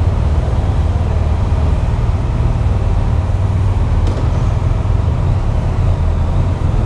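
Motorcycle engine running at low revs, a steady low drone, heard on the enclosed steel vehicle deck of a ferry.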